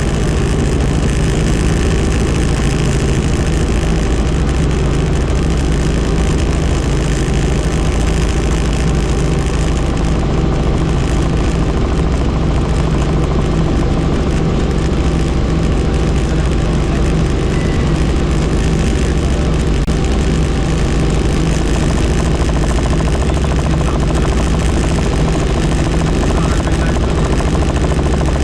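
Helicopter engine and rotor noise, steady and loud, in level flight.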